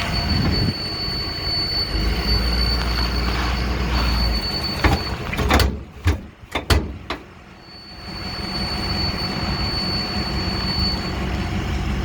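Demco Recon fifth-wheel hitch in a Ford F-350's bed making a quick run of sharp metallic pops, about half a dozen within two seconds starting about five seconds in, over the truck's steady running noise. The owner believes something in the hitch is broken.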